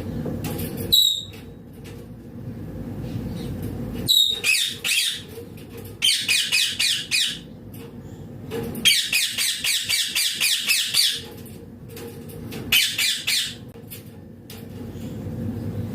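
Green Indian ringneck parakeet calling: two sharp high chirps, then several runs of rapid, harsh chattering squawks, the longest about two seconds.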